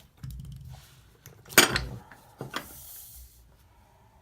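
Small hard plastic objects being handled and set down on a table: scattered clicks and knocks, with one sharp clack about one and a half seconds in and another about a second later, and a brief faint hiss after it.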